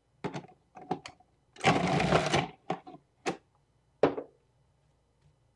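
Food processor running for about a second as its blade tears through cabbage, amid several sharp plastic knocks and clicks from the machine as cabbage is fed into it.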